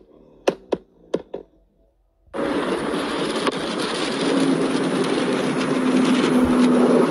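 A car's exhaust popping and cracking, four sharp bangs in quick succession. Then a sudden change to the loud, steady rush of a car being driven hard at speed, with wind and road noise and a steady engine drone, as its exhaust spits flames.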